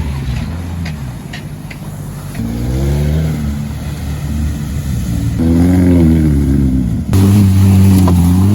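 Car engine revving up and falling back in several pulls. About seven seconds in, an abrupt cut leads to a louder, steadier engine note.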